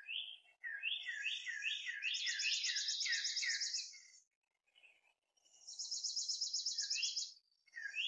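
Birds calling together: one gives a fast, even, high trill while another repeats downslurred whistled notes about three times a second. Both stop for about a second and a half midway, then the trill comes back and the slurred notes follow near the end.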